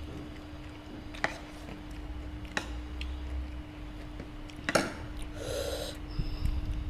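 Eating at a table: quiet chewing, with three sharp clicks of utensils against dishes, the loudest a little before the fifth second, over a steady low hum.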